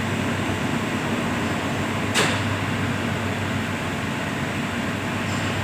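Steady hum of running machinery, with a single sharp click about two seconds in.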